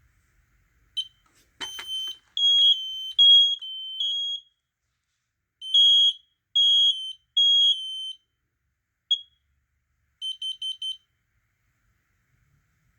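HD135 heat alarm sounding its test alongside an interconnected smoke alarm: a click, then two rounds of the three-beep temporal fire-alarm pattern from two horns at slightly different pitches, followed by a single chirp and a quick run of five short chirps as it resets.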